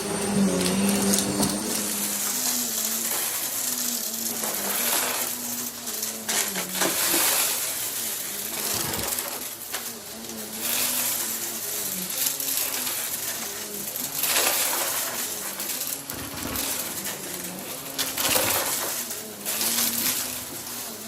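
Upright vacuum cleaner running while pushed quickly back and forth over the floor. Its motor hum dips in pitch with each stroke, about once a second, over a steady rush of suction.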